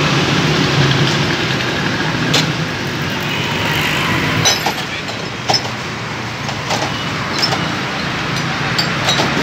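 Steady street and traffic noise with a low hum, with a few sharp clinks of glass soda bottles knocked against each other in their crates, about six scattered through.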